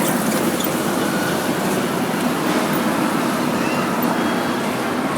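A vehicle's steady, loud running noise, an even rushing rumble with no breaks.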